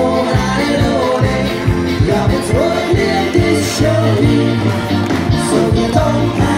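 Live band music played over a PA, with a singer over electric guitars and a steady drum beat.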